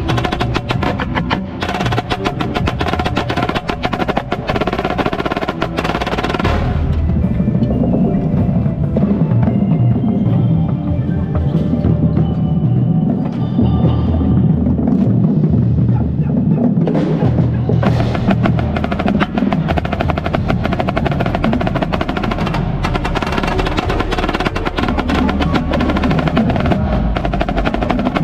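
Indoor drumline playing, with a marching snare drum heard close up in dense, fast strokes over lower drums. About six seconds in the snare drops out, leaving the lower drums and ringing pitched notes. The snare comes back in with fast playing around eighteen seconds.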